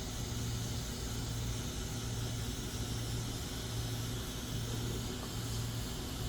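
Quick 861DW hot air rework station blowing with no nozzle fitted, a steady hiss of air over a low hum, as it preheats a laptop motherboard for desoldering.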